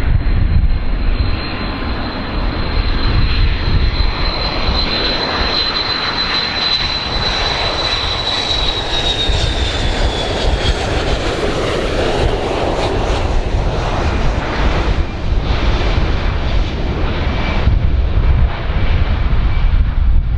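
Large airplane's engines running loud: a steady roar with a high whine that drops slightly in pitch about ten seconds in.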